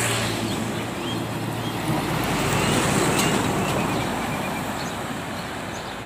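Heavy fuel tanker truck driving past on a road: engine hum and tyre noise build as it approaches, are loudest about three seconds in as it passes close, then ease off as it moves away.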